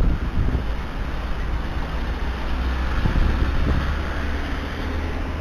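Steady low rumble of road traffic noise with a hiss over it.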